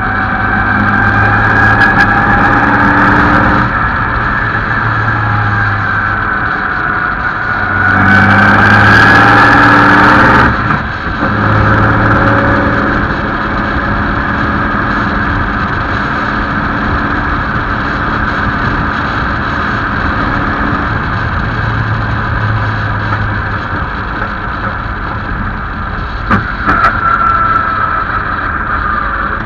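The 1927 Bentley "Old Mother Gun" racing car's engine running under load as the car drives. Its pitch rises and it grows louder at about one to four seconds in and again around eight to ten seconds, then it drops back briefly as the driver comes off the throttle and settles into a steady run.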